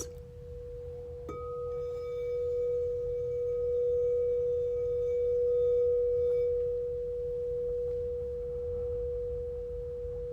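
Crystal singing bowl ringing a steady, pure tone that swells and ebbs. About a second in, a light strike adds a set of higher ringing tones, which fade away about two-thirds of the way through.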